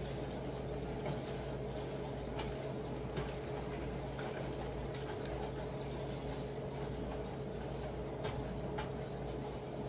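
Ground pork cooking in a frying pan on the stove, a faint steady sizzle over a constant low hum, with a few light clicks of a utensil against the pan.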